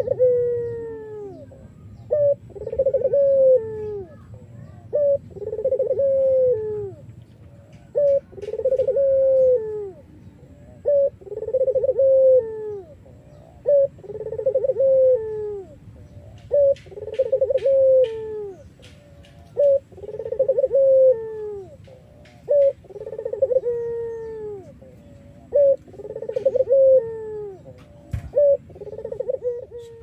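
Caged puter irak dove (a Barbary dove variety) cooing over and over, one call about every two and a half seconds. Each call is a short note followed by a longer, falling coo.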